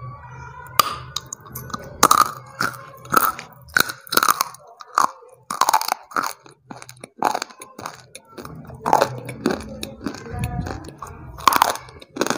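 Close-up biting and chewing of hard, chalky chunks: a quick run of sharp, dry crunches, a dozen or so, coming at an uneven pace, with chewing in between.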